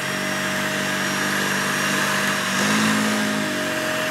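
Dyson Ball Animal+ upright vacuum cleaner running on a rug with a steady high motor whine and a deeper hum underneath. The hum grows louder for about a second near the three-second mark as the cleaner is pushed. The cleaner head is not clipped in properly, so it grips the rug and is very hard to push.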